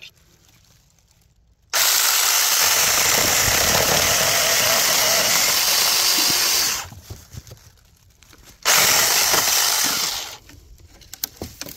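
Tomyvic 6-inch battery-powered mini chainsaw cutting through a branch. It runs steadily for about five seconds, stops for nearly two, then runs again briefly and fades as the cut finishes.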